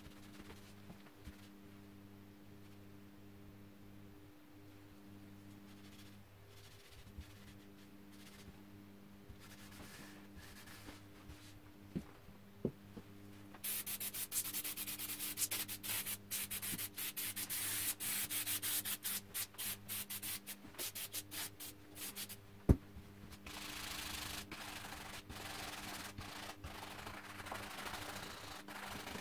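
Hand scrubbing on a musket barrel: a fast run of scratchy strokes begins about halfway in, with one sharp click near its end, then gives way to a steadier rasping rub. Before the scrubbing there is only a low steady hum.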